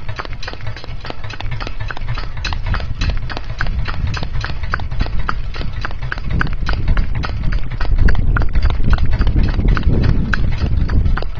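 A pony's hooves clip-clopping in a steady, even rhythm on a tarmac road as it pulls a cart, over a low rumble that grows louder in the second half.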